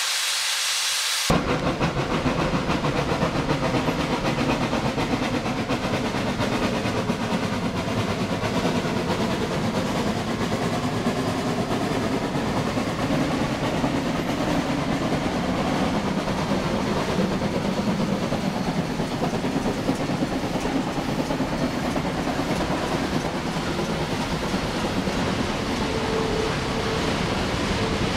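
Two Shay geared steam locomotives working past at close range: steady chuffing exhaust and the rumble and clatter of the engines and cars on the rails. A loud hiss of steam opens it and stops about a second in.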